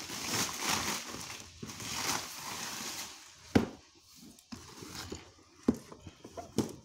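Hands handling and turning a large cardboard box: rustling and scraping of the cardboard for about the first three seconds, then several sharp knocks, the loudest about three and a half seconds in.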